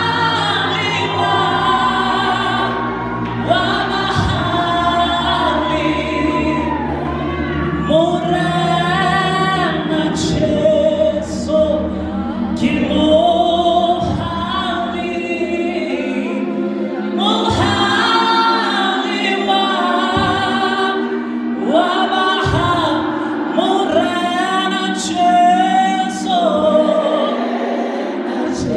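Gospel choir singing live through a PA system, with a lead singer on a microphone. Low sustained notes back the singing and drop away about halfway through.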